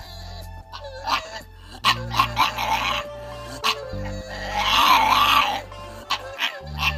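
Background music with a steady bass line, over a pug's short vocal sounds: one burst about two seconds in and a longer one near the middle.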